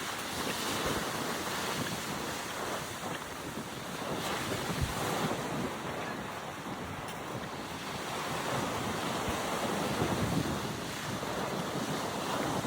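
Waves breaking on a beach with strong wind buffeting the microphone; the surf swells and falls back twice.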